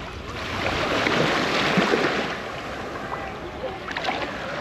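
Small, gentle sea waves washing up onto a sandy beach, one wash swelling and then easing off.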